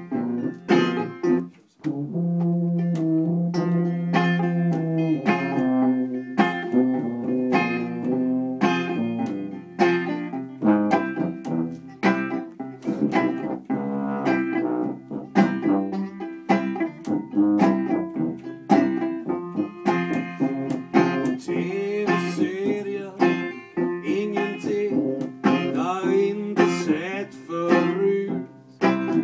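Banjo picked and strummed over a tuba bass line, with a long held low tuba note about two seconds in.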